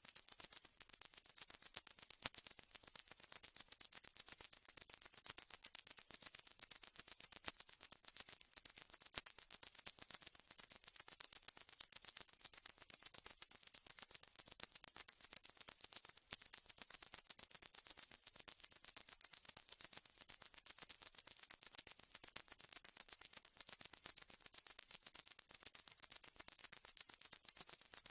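Night insects trilling in a chorus: a steady, very high-pitched, rapidly pulsing buzz.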